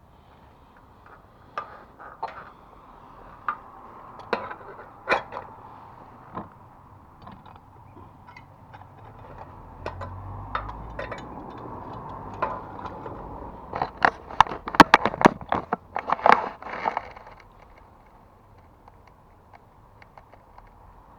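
Scattered knocks, clinks and scrapes from work on a TV aerial and its fittings, with a quick run of loud sharp knocks about two-thirds of the way in.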